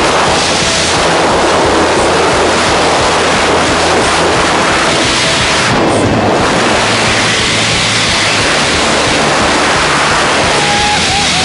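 Loud, steady rush of wind across the microphone during a skydive.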